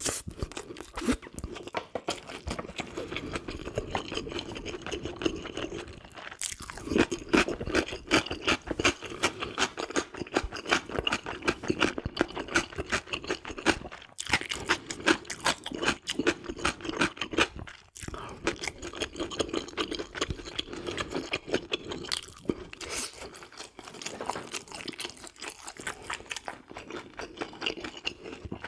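Close-miked chewing: a dense, continuous run of crunches and mouth sounds as food is eaten.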